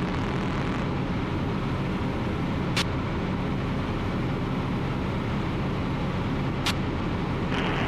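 Ultralight aircraft's engine and propeller droning steadily in cruise, heard in the cockpit. Two brief clicks cut through it, about four seconds apart.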